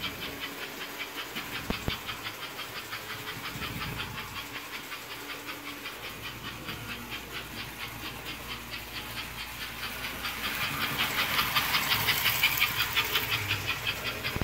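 American Flyer 301 Reading 4-4-2 Atlantic toy steam locomotive running on its track, its choo-choo unit chuffing in a quick, even rhythm over the steady rumble of the wheels. The chuffing grows louder from about ten seconds in, as the engine comes nearest, then eases near the end.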